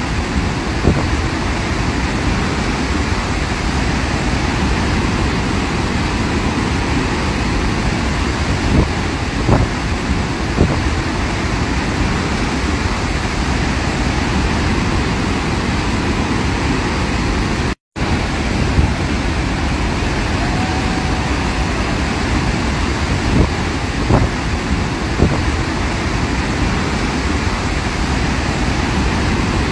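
Victoria Falls, a very large waterfall, making a steady, loud rushing roar of falling water. The sound cuts out for a split second about eighteen seconds in.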